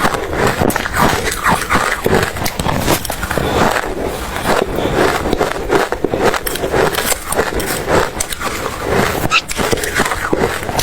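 Close-up crunching and chewing of ice in the mouth: dense, irregular crackly bites that go on without a break.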